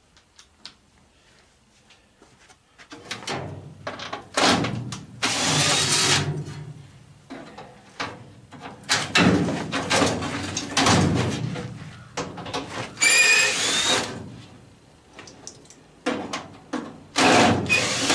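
A power drill or driver with a 7/16 socket running in short bursts to loosen the bolt holding the furnace blower, with metal knocking between bursts and a brief rising squeal near the end.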